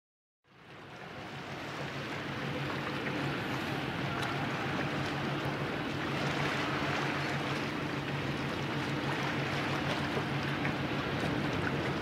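A pusher tug's engine drones steadily, with a low even hum, under a wash of water and wind noise; the sound fades in about half a second in.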